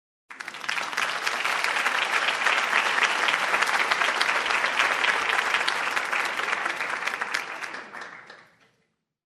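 Audience applause: many people clapping. It starts abruptly, holds steady for about seven seconds, then dies away near the end.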